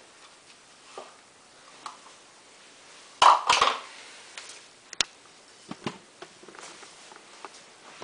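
Handling noises: a loud rustling scrape about three seconds in, then a sharp click and a few smaller clicks and knocks.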